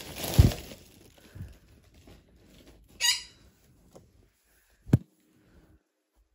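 Handling of a large stuffed plush dinosaur: a heavy thump about half a second in, a short high squeak near three seconds, and a sharp knock near five seconds, with quiet handling noise between.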